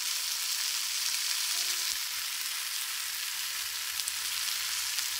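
Onions and tomatoes sizzling steadily in hot oil in a steel pan as they sauté, an even frying hiss.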